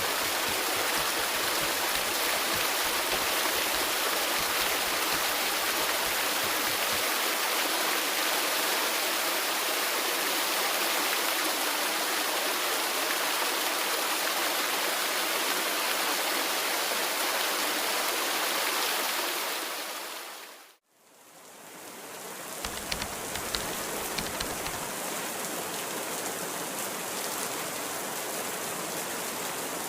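Waterfall pouring as a steady, even wash of falling water, fading out about two-thirds of the way through. Steady rain then fades in, with a few single drops ticking sharply soon after.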